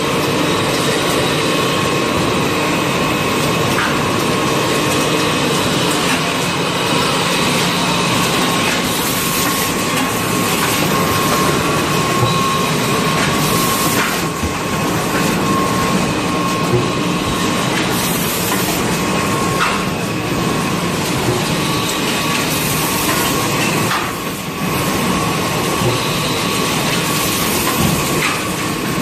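Automatic bundling and packing machine for toilet rolls and kitchen towels running, with its conveyors: a steady, dense mechanical clatter with a constant whine and now and then a sharper click.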